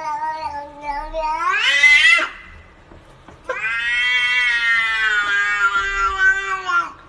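Domestic cat yowling in two long drawn-out calls. The first rises in pitch and breaks off about two seconds in; the second is held for more than three seconds and sinks a little at the end.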